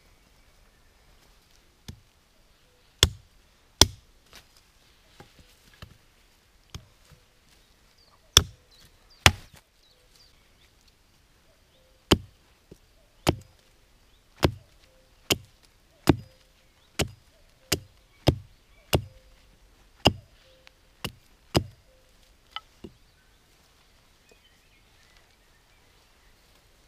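Hatchet chopping wood on a stump: about twenty sharp, single blows at irregular intervals, some in quick pairs, stopping a few seconds before the end.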